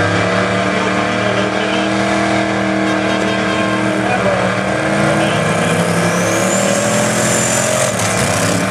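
Twin-turbo big-block V8 in a Model T hot rod running steadily, then revving hard into a burnout in the last few seconds, the rear tyres spinning. A high whine rises with the revs, the turbos spooling.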